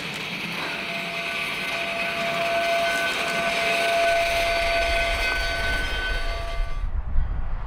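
Narrow-gauge steam locomotive working through snow, its whistle sounding one long, steady, chord-like note from about a second in. Near the end the sound cuts abruptly to the low rumble of a diesel locomotive.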